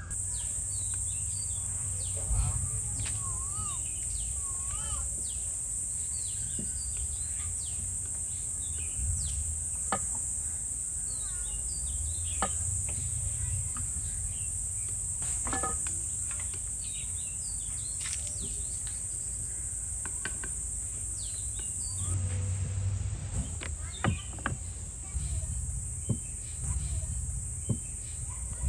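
A steady high-pitched insect drone, like crickets or cicadas, with birds chirping over it. Now and then there is a light click or knock.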